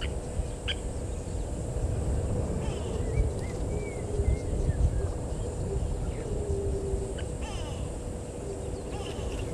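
Outdoor bush ambience: a steady wind rumble on the microphone, with a few short bird chirps and calls that rise and fall, clustered around three to four seconds in.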